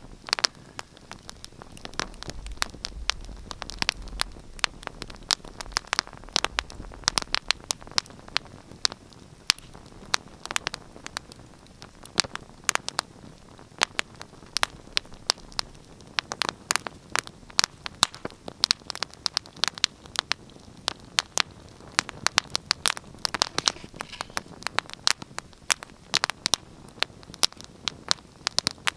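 Wood fire crackling and popping steadily, with many sharp snaps over a low hiss, and a low rumble between about two and seven seconds in.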